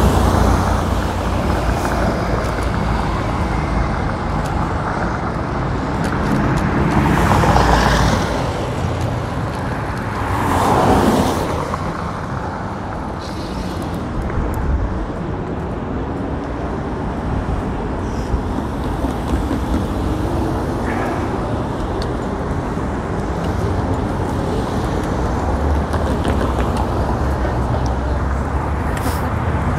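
City street traffic heard from a bicycle-mounted action camera, with wind rumbling on its microphone. Two vehicles pass loudly about seven and eleven seconds in.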